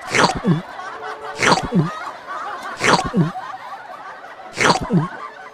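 A short comedic sound effect played four times over one to two seconds apart, each a quick high downward swoosh followed by a falling low tone.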